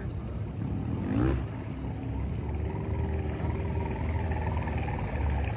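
Small fishing boat's motor running steadily: a low hum with a faint wavering whine above it, and a brief rising tone about a second in.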